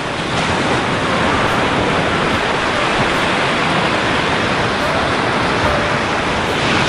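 Steady rushing noise of small Gulf surf washing in at the shoreline, unbroken throughout.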